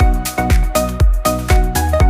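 Electronic dance music with a strong kick drum about twice a second and a melody over it.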